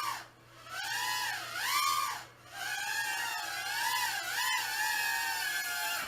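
Brushed micro quadcopter motors whining, the pitch sliding up and down with the throttle. The whine dies away twice briefly, about half a second in and again after about two seconds, as the throttle is chopped.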